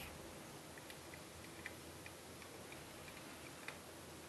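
Faint, scattered light clicks of a small metal regulator being handled and lined up with the air tube of an EDgun Leshiy air rifle, over low room tone.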